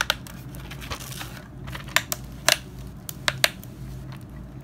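Hard plastic hoverboard shell cover being handled by gloved hands: scattered sharp clicks and knocks as it is lifted and set against the frame, with a short rustle about a second in.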